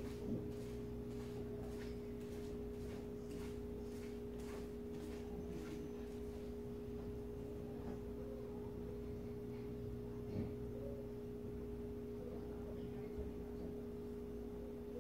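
A steady low two-tone hum throughout, with faint soft taps about twice a second that stop about six seconds in.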